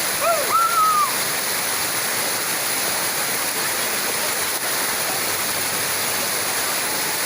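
Waterfall's steady rush of falling water, an even hiss that does not let up. A short call from a voice rises over it about half a second in.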